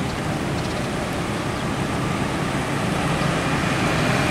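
Steady roadside traffic: motorcycles and cars passing close by a stopped coach with its diesel engine running, a low rumble under the hiss of tyres and small engines.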